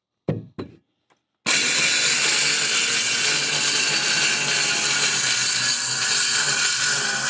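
A couple of short knocks, then from about a second and a half in a cordless power saw runs steadily, cutting wood on a nearly drained battery.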